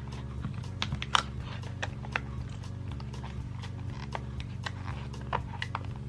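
Background music: a low bass line changing notes every second or so, with scattered sharp clicks.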